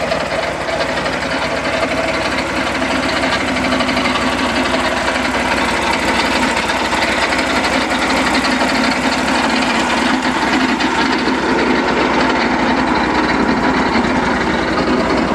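Peterson portable sawmill running steadily, its engine going at a constant pace while milling.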